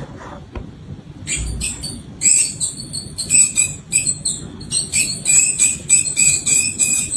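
Mouse squeaking: a quick run of short, high-pitched squeaks that starts about a second in and keeps going.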